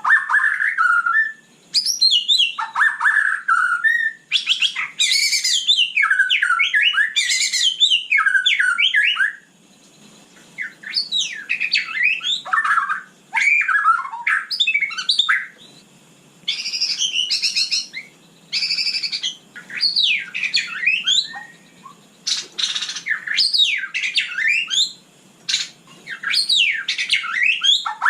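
White-rumped shama singing: a rapid run of sweeping, whistled notes, delivered in phrases of one to a few seconds with short pauses between them.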